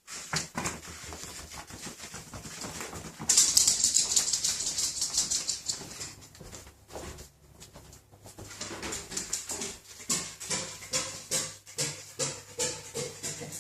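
A dog panting rapidly, close by, in quick breathy strokes that grow loudest a few seconds in.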